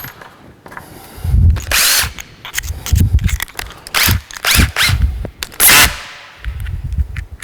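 Power drill driving a self-drilling wing-tipped screw (Wing-Tek) through the backboard in a series of short trigger bursts, the motor speed wavering within each burst.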